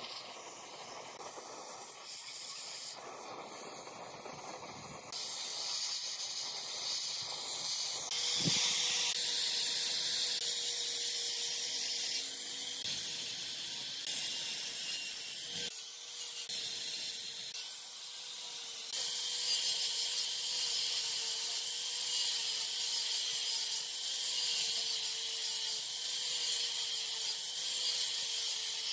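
A steady, high hiss that shifts abruptly in level several times, with a faint steady hum joining about eight seconds in.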